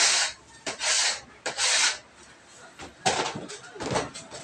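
A metal blade scraping across a stainless-steel work table as it cuts through a sheet of bread dough, in five short rasping strokes.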